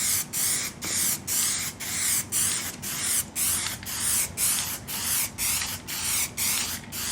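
Aerosol can of Plasti Dip rubber coating spraying a first coat, a high hiss broken into short even bursts about two a second.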